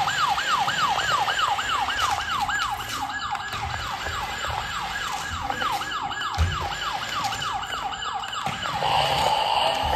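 Electronic siren from a toy remote-control police motorcycle: a rapid falling wail repeating about two and a half times a second. Near the end it switches to a rougher, steadier sound.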